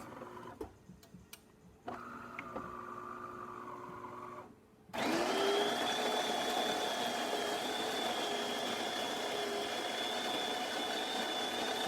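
DeLonghi Perfecta super-automatic espresso machine starting a shot. A quieter motor runs for a couple of seconds. Then, about five seconds in, the machine's built-in grinder spins up with a rising whine and runs steadily and loudly until near the end.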